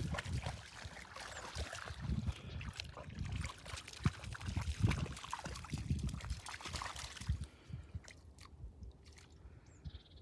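A dog wading in shallow river water, sloshing and splashing at the edge, with irregular low thumps. It goes much quieter about three-quarters of the way through.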